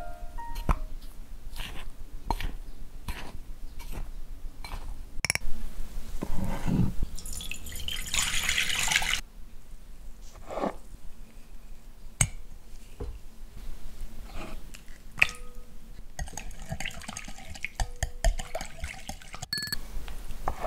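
Kitchen handling sounds: a whisk clinking against a glass mixing bowl while stirring flour, then small glass bowls set down and handled on a wooden board, giving scattered sharp clinks and taps. A rustling hiss lasts about a second and a half around eight seconds in.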